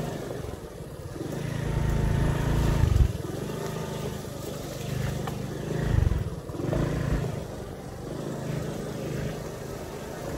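Small motorcycle engine running while riding, with a steady low drone that swells louder twice, around two and six seconds in.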